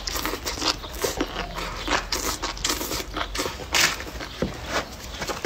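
Close mouth sounds of eating: slurping in a mouthful of stir-fried rice noodles with enoki mushrooms, then chewing, with many quick wet smacks and clicks.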